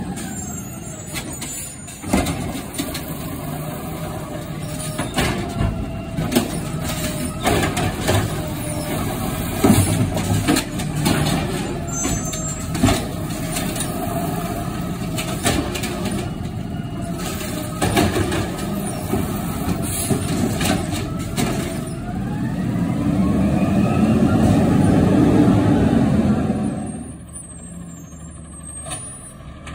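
Automated side-loader garbage truck at work: the diesel engine runs with a steady hydraulic whine while the arm lifts and empties carts, and repeated clanks and bangs come from the carts striking the hopper. Near the end the engine revs up with a rising whine and grows loudest, then drops suddenly to a quieter, more distant truck.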